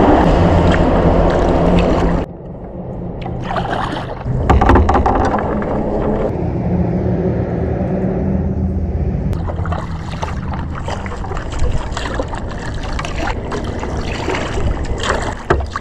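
Kayak paddle strokes in river water, with splashes and drips. There is a heavy low rumble for the first two seconds that cuts off abruptly.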